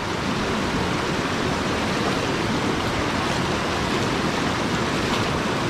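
Shallow mountain river rushing over a stony bed, a steady, even rush of water.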